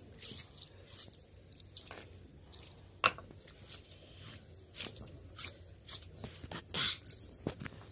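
Hand rubbing and washing a wet, grooved grinding stone (sil), gritty scrubbing with small splashes of water, with one sharp knock about three seconds in.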